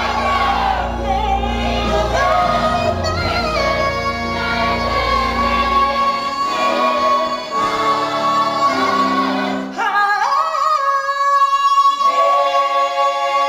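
Musical-theatre finale sung live: a female lead belts one long held note over a chorus and pit orchestra, sliding up into it again about ten seconds in, with the orchestra's closing chords beneath.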